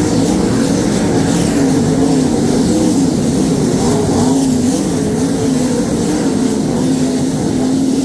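Winged sprint cars' V8 engines racing around a dirt oval, the engine pitch rising and falling continuously as the cars power down the straights and lift for the turns.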